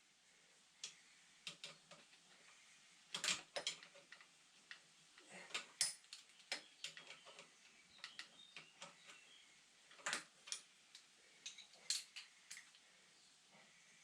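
Irregular light clicks and knocks of small parts and tools being handled during hands-on work.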